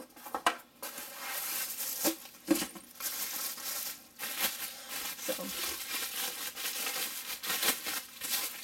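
Plastic bubble wrap and packing paper crinkling and rustling as a glass bottle is pulled from its wrapping by hand. A few sharp taps come in the first couple of seconds, then dense, continuous crinkling.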